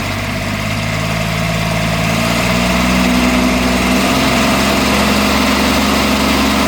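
Crary Bearcat CH611DH wood chipper's diesel engine running, its revs rising for about two seconds as the throttle is brought up to about halfway, then holding steady at the higher speed.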